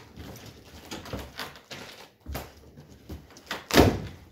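Cardboard boxes being shifted and slid about inside a large cardboard shipping box by gloved hands: a series of short scrapes and knocks, the loudest near the end.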